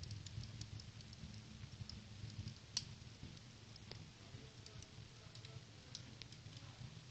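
Wood fire crackling inside a metal stove-fireplace: scattered sharp, irregular crackles over a low steady rumble.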